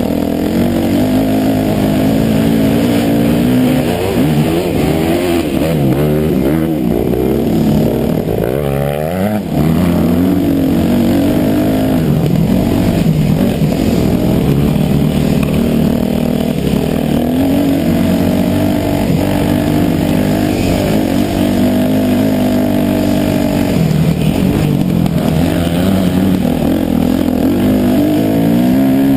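Dirt bike engine under way on a trail, revving up and dropping back again and again as the rider accelerates and backs off.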